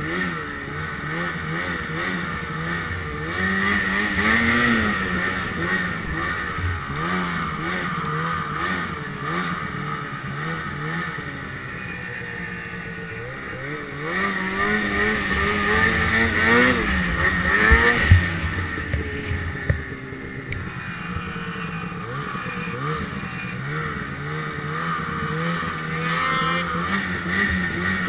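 Ski-Doo Summit XP 800 snowmobile's two-stroke engine running under throttle while riding through snow, its pitch rising and falling again and again as it revs up and backs off. A couple of sharp knocks come about two-thirds of the way through.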